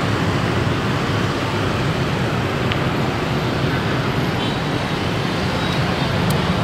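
Continuous street traffic noise: a steady low engine rumble from passing motorbikes, cars and buses.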